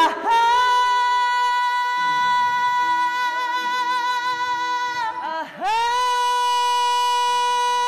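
A young man's voice holding a very high sung note as a high-pitch vocal exercise. The note scoops up at the start and is held steady with a slight waver. About five seconds in it dips and breaks briefly, then slides back up to the same pitch and holds again.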